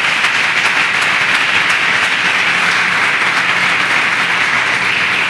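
Congregation applauding, a steady dense clapping of many hands that begins to fade just after the end.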